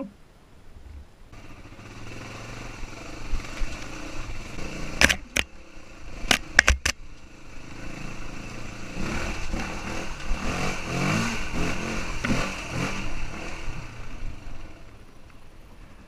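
Dirt bike engine running and revving on a rough trail, its pitch rising and falling. A few sharp knocks and clatter come between about five and seven seconds in.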